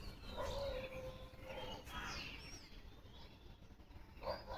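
Several birds calling: a low held call a little under a second long starts just after the beginning, with short high chirps and whistled glides throughout and a fresh burst of calls near the end.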